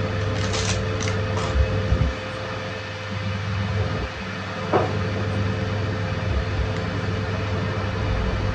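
A steady low machine hum with a faint steady whine over it. A few light clicks and soft knocks come from hands working cookie dough on the table.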